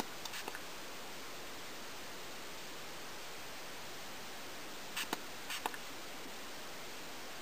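Short spritzes from a finger-pump spray bottle of peroxide being sprayed onto hair: a couple of faint ones near the start, then a quick cluster of three or four about five seconds in, over a steady background hiss.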